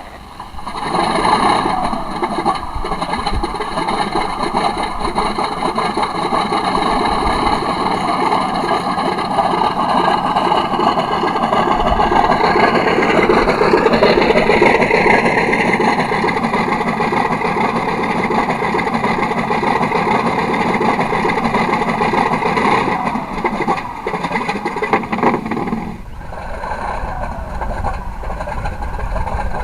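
Simulated radial aircraft engine sound from a Benedini RC sound module (the 'Radial2' sound file), played through loudspeakers in a model A6M Zero. It comes on about a second in and runs steadily, revs up with a rising pitch a little before halfway, then drops suddenly to a quieter, lower run near the end.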